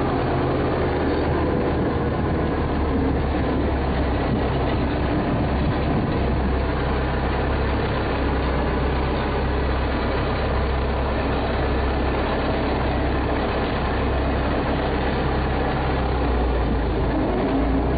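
A vehicle engine running steadily with a low hum and an even rush of noise over it, unchanging throughout.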